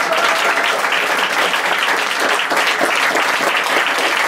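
Steady applause from a theatre audience, with the performers on stage clapping along.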